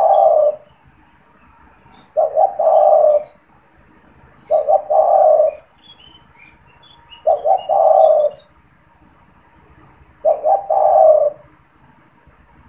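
Spotted dove (tekukur) cooing over and over: each phrase is a couple of short notes and then a longer coo, repeated about every two and a half to three seconds, five times. Small birds chirp faintly between the phrases.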